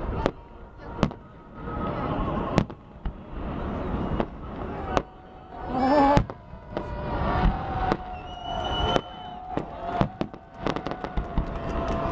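Festive fireworks display: shells bursting with sharp bangs, many in quick succession, over a low rumble, with a long steady pitched tone through much of the second half.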